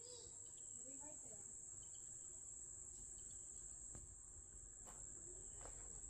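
Faint, steady, high-pitched drone of insects calling.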